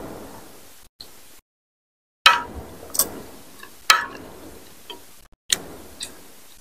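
Metal spoon and fork clicking against a glass bowl of curry broth, several sharp ticks a second or so apart, with quieter eating sounds between them. The sound drops out to dead silence twice where it is cut.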